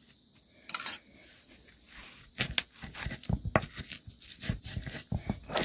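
Garlic and chillies being crushed on a flat Nepali grinding stone (silauto) with a round hand stone (lohoro). It gives irregular knocks and crunches from about two seconds in, after one short click near the start.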